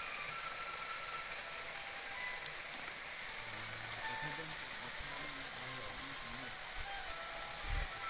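Steady hiss of a waterfall's rushing water, with voices talking faintly under it and a low bump near the end.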